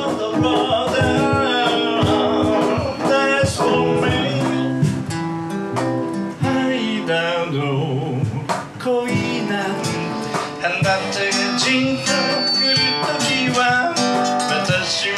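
A man singing while strumming an acoustic guitar, performing live through a small PA system.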